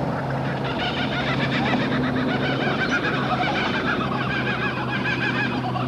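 Laughing kookaburra calling: a rapid, rhythmic cackling laugh that starts about a second in and keeps going, over a low steady hum.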